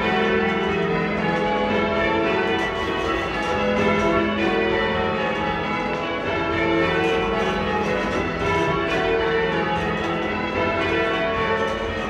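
Church tower bells being change-rung: the bells strike one after another in a steady, unbroken rhythm, their ringing tones overlapping.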